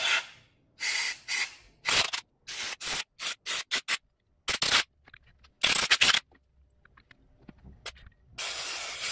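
Compressed-air blow gun giving a run of short hissing blasts into the oil passages of a Subaru EJ25 cylinder head, then one longer blast near the end, clearing out metal shavings and dirt.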